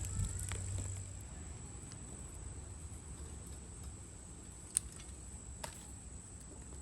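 Quiet outdoor background with a steady thin high-pitched whine, broken by two faint sharp clicks near the end.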